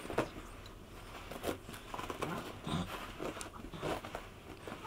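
A toy poodle rolling and rubbing itself on a carpet: irregular scuffling and rustling of its body and fur against the carpet pile.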